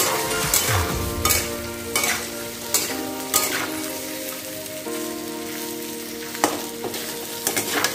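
Boiled potato cubes frying in a metal kadhai with a steady sizzle, broken by the irregular scrapes and knocks of the food being stirred and tossed against the pan.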